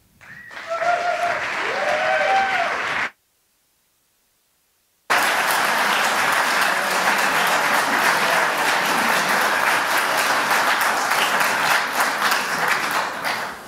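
Audience applauding, with a few short voiced calls over the clapping in the first three seconds. The sound drops out completely for about two seconds, then steady applause resumes and dies down near the end.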